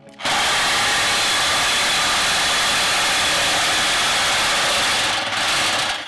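Corded reciprocating saw cutting through the car's metal exhaust pipe: a loud, steady grinding buzz that starts just after the beginning, dips briefly about five seconds in, and stops near the end.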